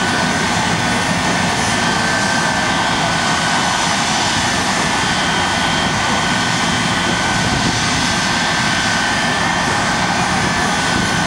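Shockwave jet truck's jet engines running steadily: a loud, even rush with a high steady whine over it.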